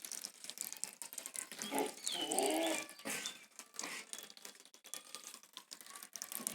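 A goat bleating: one call from about two seconds in, lasting about a second, then a shorter, fainter one, with scattered clicks.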